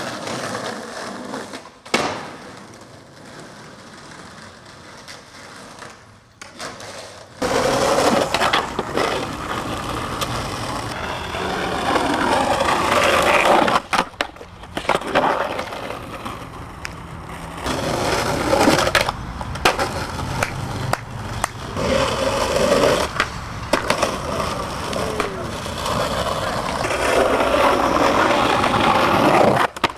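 Skateboard wheels rolling on concrete and asphalt, with sharp clacks of the board hitting the ground and the trucks grinding a concrete ledge. It is quieter at first, with one sharp clack about two seconds in. Steady rolling noise sets in about seven seconds in and is broken by a few loud clacks.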